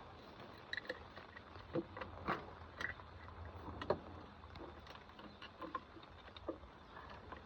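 Scattered light clicks, taps and knocks of metal parts and hand tools being handled during hands-on repair work, loudest in a cluster from about two to four seconds in, over a faint steady hum.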